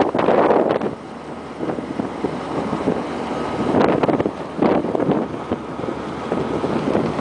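Marcep tracked low-bed trailer and its tracked tractor moving over packed snow, with wind buffeting the microphone in gusts.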